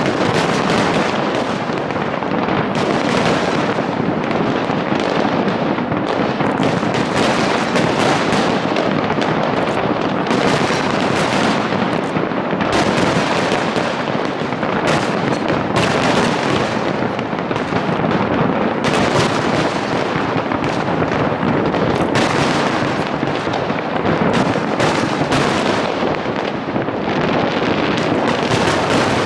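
Large fireworks display: a dense, unbroken run of overlapping shell explosions, one bang after another with no pause between them.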